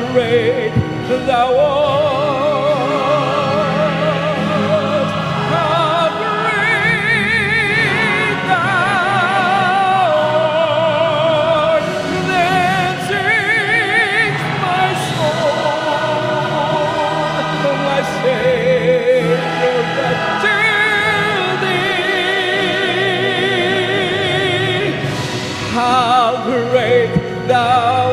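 Hymn music: a slow solo melody with wide vibrato over sustained accompaniment, with no clear words.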